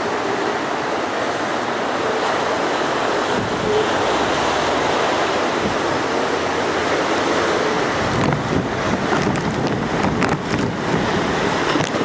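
Hurricane wind and storm-driven harbour waves making a loud, steady rush of noise. From about eight seconds in, gusts buffet the microphone with a run of crackles.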